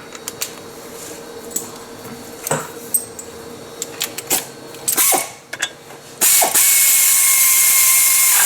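Metal tools and parts clinking, then a cordless power tool runs steadily for about two seconds near the end, running in the clutch and housing bolts before they are torqued.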